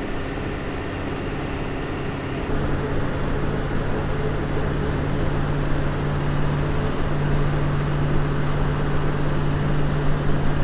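Steady engine drone and road noise inside a moving Eicher-chassis AC sleeper bus on the highway. The low hum gets louder about two and a half seconds in and again around seven seconds.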